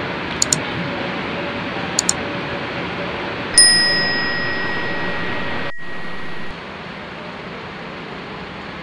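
Subscribe-animation sound effects: two quick mouse-click double clicks, then a notification-bell ding that rings out for about two seconds. Steady background din from the bus depot runs underneath and drops quieter at a cut about six seconds in.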